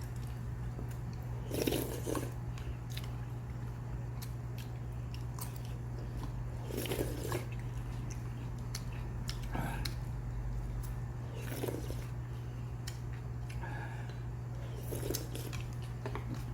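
A person chewing and crunching food close to the microphone, with short bites and crunches every few seconds over a steady low hum.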